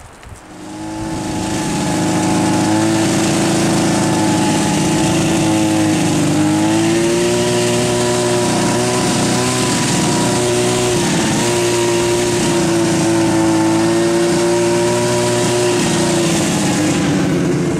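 Snowmobile engine running as it is ridden along a snow track. It comes up over the first couple of seconds, then holds a steady speed, rising slightly in pitch about six seconds in.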